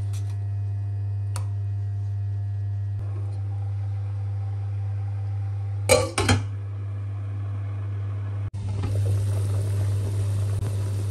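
A glass pot lid clinks down onto a stainless steel pot about six seconds in. After a cut near the end, water bubbles at a rolling boil. A steady low hum runs underneath throughout.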